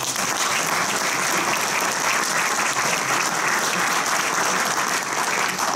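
Audience applauding: steady, dense clapping that starts all at once.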